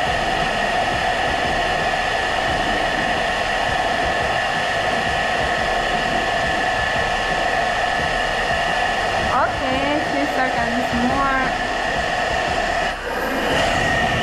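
Philips SenseIQ hair dryer running steadily on its gentle setting: a continuous rush of air with a steady motor whine. The sound dips briefly about a second before the end.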